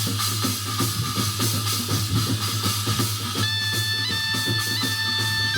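Korean shamanic gut ritual music: quick, dense drum strokes, joined about three and a half seconds in by a long held high melodic note.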